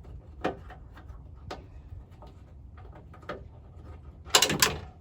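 Hand tools and hardware clicking and knocking while a pickup's tail-light mounting bolts are worked loose. A few single sharp clicks are followed near the end by a short, loud rattle of clicks.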